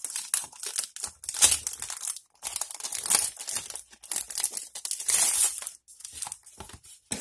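Clear plastic packaging sleeve crinkling as hands pull it open and slide a cardboard retail box out of it. The crinkling comes in irregular bursts and is loudest about a second and a half in and again around five seconds in.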